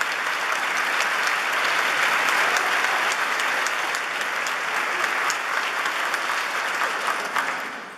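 Audience applauding, a dense patter of clapping that dies away near the end.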